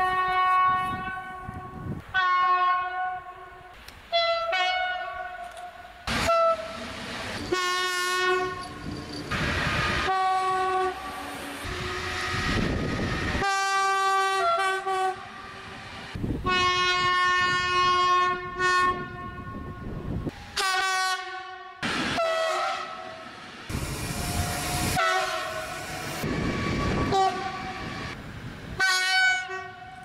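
Train horns sounding in a rapid string of short blasts, a dozen or so, some shifting between two pitches, with the running noise and wheel clatter of passing trains in between.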